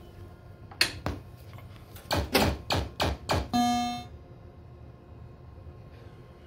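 Pinball machine sound effects: two sharp hits, then a quick run of five loud strikes ending in a short held electronic tone that stops abruptly.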